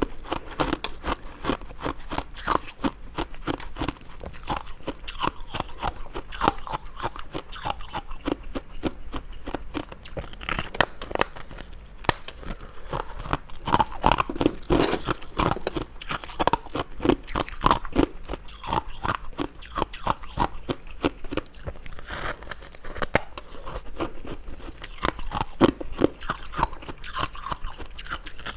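Close-up crunching of ice being bitten and chewed, with dense crackling crunches following one another without a break.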